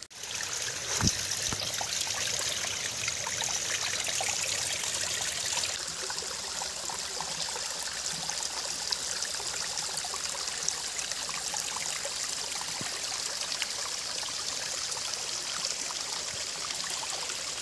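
Small rocky hillside stream trickling steadily over stones, its flow running low. It is a little louder for the first six seconds.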